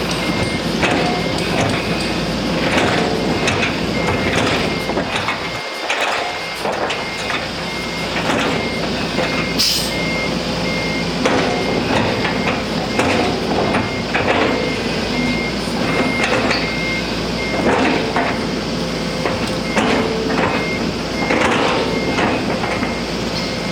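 Heavy truck or machinery engine running, with a vehicle reversing alarm beeping in an even series and repeated metallic knocks and clanks.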